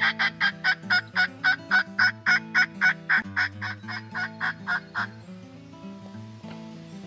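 A long series of turkey yelps, about three or four sharp raspy notes a second, stopping about five seconds in. Low background music runs underneath.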